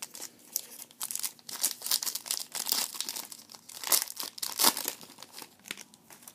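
Foil trading-card pack wrapper crinkling and rustling in quick, sharp crackles as it is handled and torn open, loudest about four and four and a half seconds in.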